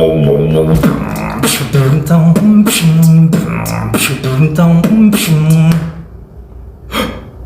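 Mouth beatboxing: a hummed bassline stepping between a few low notes under sharp snare and hi-hat sounds in a quick rhythm. The beat stops about six seconds in, with one more short hiss-like stroke near the end.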